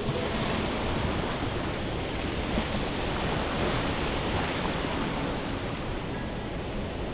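Ocean surf washing up a sandy beach in a steady rush, with wind buffeting the microphone.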